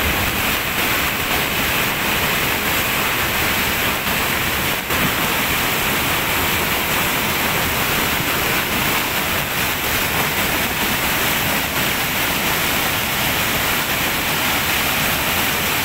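Flooded river in spate after heavy rain: fast, muddy water rushing and churning past the bank in a loud, steady rush.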